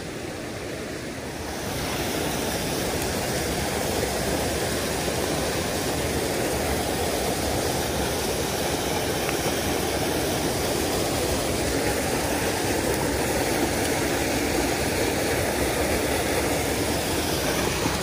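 Mountain stream rushing and splashing over rocks in a small cascade, a steady rush of water that grows louder about two seconds in.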